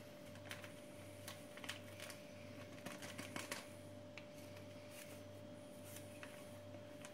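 Faint scattered clicks and light taps of a spoon and flour sachets against a plastic mixing bowl as flour is worked into a soft dough, over a faint steady hum.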